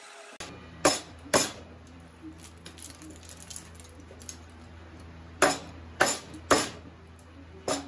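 Claw hammer striking a cedar blank, breaking off the waste blocks between band-saw kerfs: six sharp knocks, two about a second in and four more close together in the second half.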